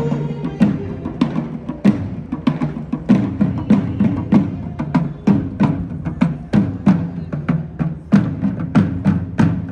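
Marching side drums beaten by a drum corps in a steady cadence of quick, sharp strokes.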